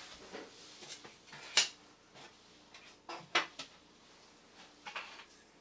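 Rummaging through small hard parts in search of a gear: a handful of scattered clicks and knocks, with quiet stretches between.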